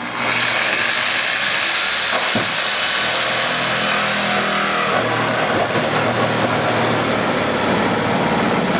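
Reciprocating saw (Sawzall) running under load, cutting to enlarge the hood-scoop opening: a loud, steady, rasping buzz that starts abruptly.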